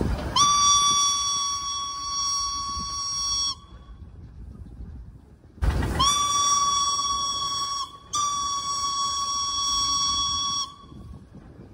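Steam whistle of locomotive B 5112 blowing three blasts: a long one of about three seconds, then two more close together about six seconds in. Each is a steady high tone that slides up slightly as it starts.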